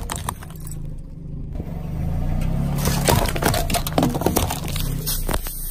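Car engine running low as a tyre rolls slowly over objects on asphalt, with sharp cracks and crunches as they are crushed. One of them is an aluminium soda can flattened under the tyre.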